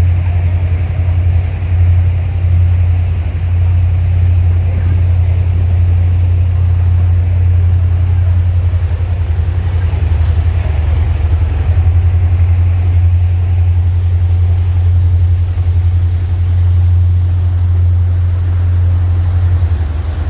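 A steady, loud low engine drone with a faint rushing noise above it.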